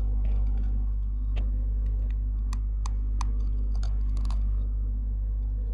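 Teeth biting and crunching on the rim of an unglazed clay pot close to a lavalier microphone: a scatter of sharp, crackly clicks, bunched in the middle and second half and stopping about a second before the end, over a steady low electrical hum.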